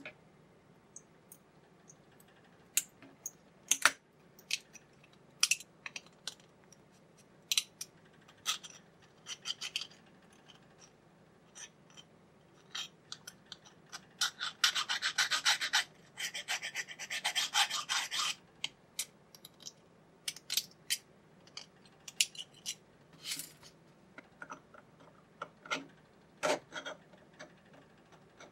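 Flush cutters snipping excess plastic off a 3D-printed part in sharp, scattered clicks, then, about halfway through, a few seconds of rasping as a chisel blade scrapes along the plastic. More clicks and taps of plastic follow.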